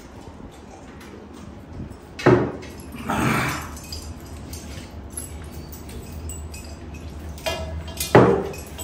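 Glass water mugs knocked down onto the table twice, about two seconds in and near the end, over the small sounds of hands scooping rice on steel platters and people eating. A short rush of noise follows just after the first knock.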